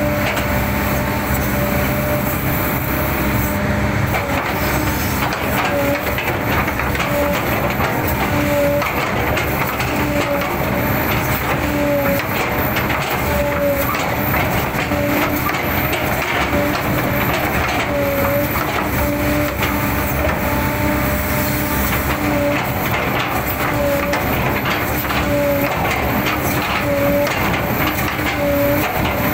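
A 20-ton-class hydraulic excavator's diesel engine and hydraulics running hard, heard from the cab, as the boom and bucket work. A short tonal note recurs about every second or so over the steady engine noise.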